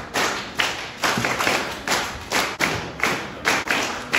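A rhythmic percussive beat, about two to three hits a second, each hit ringing briefly in a large hall.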